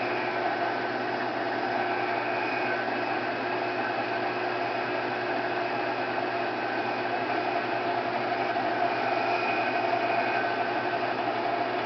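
Milling machine running steadily as its large-diameter end mill plunge-cuts into a metal bracket: an even motor hum with the steady hiss of the cut, shedding chips.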